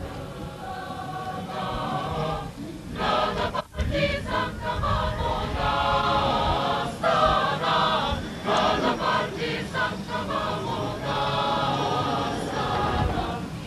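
Choir singing, breaking off briefly between phrases about three and a half seconds in.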